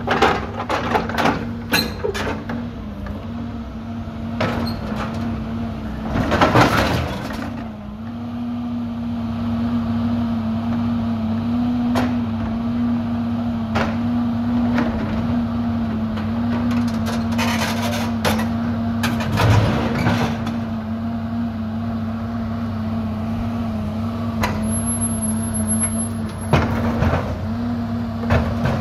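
Diesel engine of a John Deere backhoe running steadily, its pitch sagging briefly a few times under hydraulic load. Over it come metal clanks, bangs and scraping as its grapple lifts and wrenches the boom of a Timbco machine being dismantled. The loudest clatter comes about six to seven seconds in.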